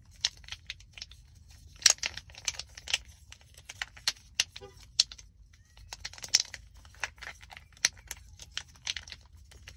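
Plastic puzzle cube being twisted and folded in the hands: an irregular series of light plastic clicks and clacks.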